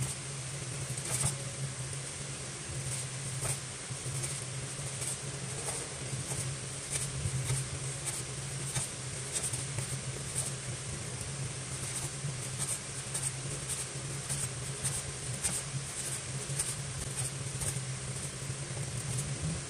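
Cleaver chopping raw pork belly on a wooden cutting board: repeated sharp knocks of the blade through the meat onto the board, sparse at first, then about two a second. A steady low hum runs underneath.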